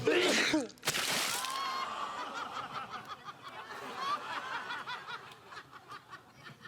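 A man sneezing: a drawn-in voiced "ah" and then a short, loud "choo" about a second in. Studio audience laughter follows.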